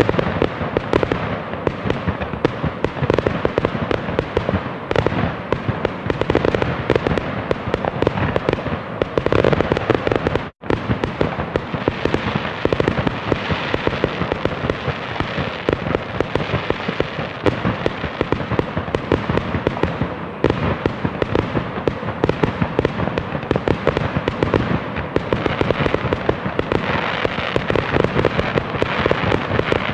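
Dense, continuous fireworks barrage: rapid overlapping bangs and crackling without a pause, except for a split-second drop to silence about ten seconds in.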